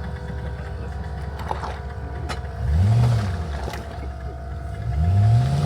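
Off-road 4x4's engine running, revved up and back down about three seconds in, then revving up again near the end.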